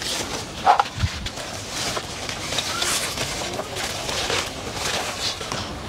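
Large plant leaves rustling and scuffing against the planter as a big potted plant is pushed and shifted into a tight planter box, with a short low thump about a second in.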